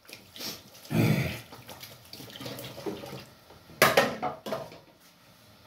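Water from a tap running and splashing unevenly as hands are washed, with a sharp knock about four seconds in.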